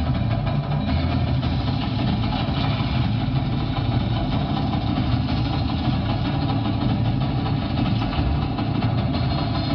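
Steady low rumble of a tank engine sound effect, played over a projection show's loudspeakers.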